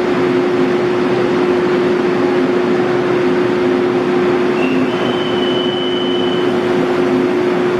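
Steady loud rumble with a constant low hum from Taiwan Railway trains standing at an underground station platform. A thin high whine comes in about four and a half seconds in and stops about two seconds later.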